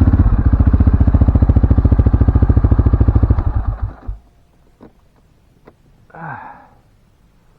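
CFMoto ATV engine idling with an even, rapid pulse, then shut off: it winds down and stops about four seconds in. A few faint clicks and one brief, short sound follow.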